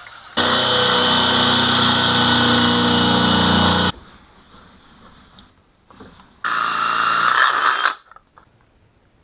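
Electric drill cutting into the car's removed ashtray: a steady run of about three and a half seconds, a pause, then a shorter run of about a second and a half.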